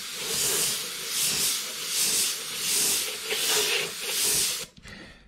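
Airbrush hissing as it sprays a light black base coat, swelling and fading about once a second with each pass, then stopping near the end.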